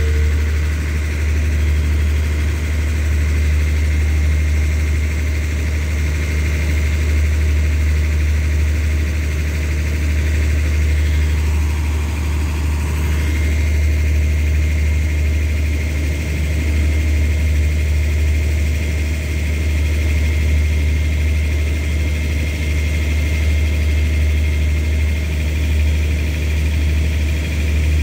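Steady low diesel hum of a stationary passenger train idling at the platform, with a faint steady high whine above it.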